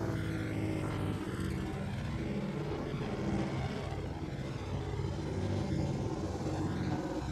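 Engines of several sport motorcycles running as they ride past one after another into a corner, their overlapping engine notes shifting in pitch.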